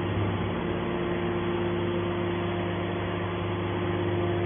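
Hydraulic scrap metal baler running with a steady hum.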